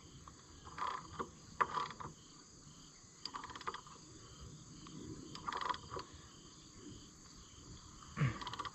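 Faint crickets chirping steadily, with a few short, soft knocks and clinks of hand work on the tractor's oil filter housing.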